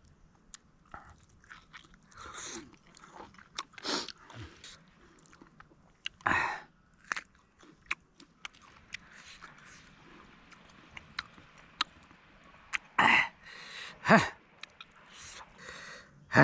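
A person chewing and biting into buff ribs close to the microphone, with many short sharp crunching clicks. A few louder bursts stand out about 4, 6, 13 and 14 seconds in.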